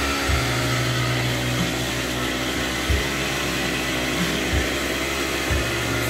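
Small two-stroke engine running steadily with a constant buzz, with a few dull low thumps.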